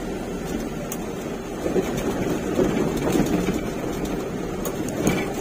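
Truck engine running steadily as the truck drives, a low drone with a few short sharp knocks and rattles over the rough road.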